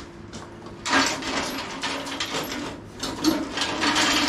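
Bandsaw's all-steel stand being dragged and twisted across a gravel floor: a rough, crunching scrape that starts about a second in and goes on in uneven pushes.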